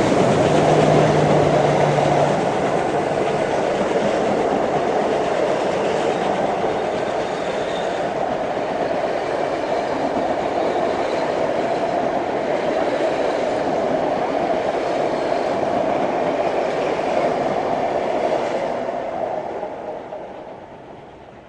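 Heritage steam train running past on the rails, a steady loud rumble and rattle of wheels and carriages that fades away near the end.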